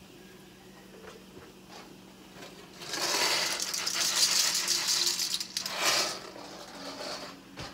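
Dry pasta shells poured from a cardboard box into a frying pan, a dense rattle of shells sliding out and dropping in, starting about three seconds in and lasting about three seconds.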